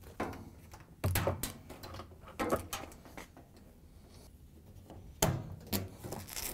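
Gloved hands handling a top-load washer's plastic tub ring and parts: a few scattered knocks and rustles, the loudest about a second in and about five seconds in.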